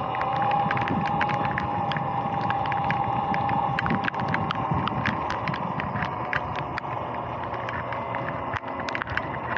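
Sur-Ron X electric dirt bike riding on wet pavement: the electric motor's steady whine, sagging a little in pitch midway and rising again near the end, over tyre hiss, with frequent sharp irregular ticks.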